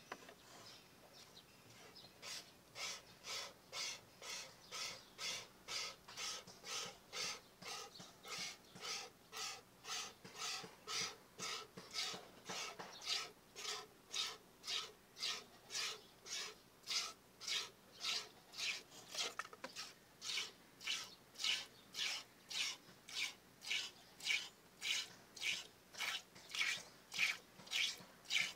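A goat being milked by hand: steady rhythmic squirts of milk into a container, about two a second, beginning about two seconds in.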